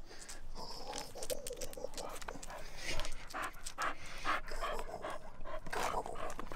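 Dog panting in quick, repeated breaths.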